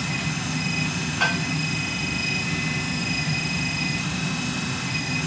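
Radio-controlled wheel loader's electric motors running with a steady whine and hum while the lift arms raise the bucket. A single short click about a second in.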